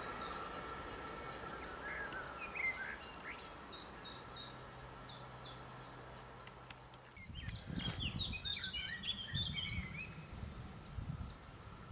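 Small birds chirping and singing in a rural setting, with a flurry of song about eight to ten seconds in. Low, gusty rumbling joins from about seven seconds in.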